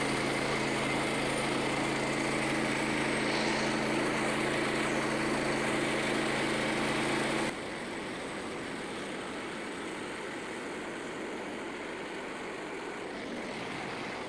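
Small gas engine of a Frontier OS27 portable bandsaw mill running steadily. About halfway through, the engine sound cuts off suddenly, leaving a quieter steady hiss.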